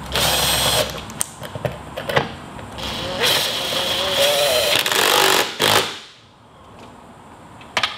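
Cordless drill running in bursts as it drives a bolt to fasten a climbing hold to the wall: a short burst at the start, a longer run with a wavering whine from about three to five seconds in, and a last short burst just after.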